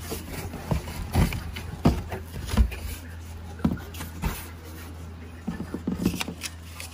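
Cardboard shipping box being handled and its flaps opened: a series of sharp cardboard knocks and thumps, several of them close together about six seconds in, over a low steady hum.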